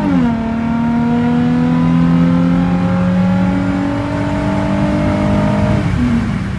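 Car engine accelerating hard: its pitch drops at a gear change just at the start, climbs steadily through the next gear, and drops again at another upshift near the end, over road and wind noise.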